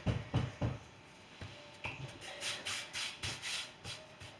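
Hands patting a folded block of puff pastry dough, a few soft thumps in the first second, then brushing and rubbing over the dough and the floured stone countertop.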